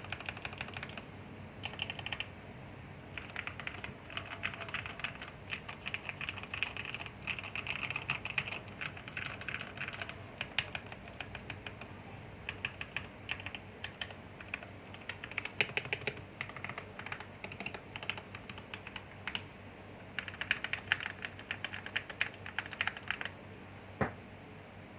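Typing on a Motospeed K87S mechanical keyboard fitted with lubed Gateron Yellow linear switches, in quick bursts of keystrokes with short pauses between them. A single louder key knock comes near the end.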